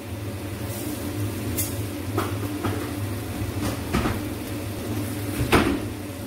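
A steady low hum with a few scattered knocks and clicks, the loudest about five and a half seconds in.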